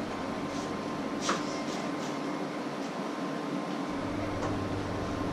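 Steady low mains-like hum in a small kitchen, its deepest part dropping out for a couple of seconds and coming back near the end. Over it are a few light knocks and ticks from a knife on a wooden cutting board, with one sharper click about a second in.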